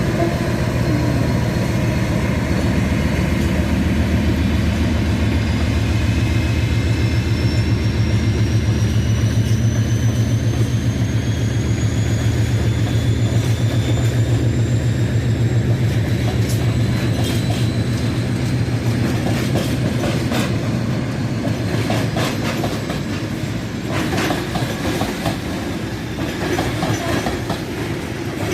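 Train running on the line with a heavy low drone and a thin whine rising in pitch as it gathers speed. In the second half the wheels click over rail joints.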